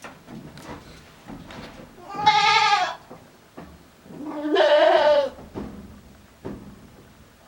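Billy goat bleating twice in an odd, strained voice, each call about a second long, the second rising in pitch at its start.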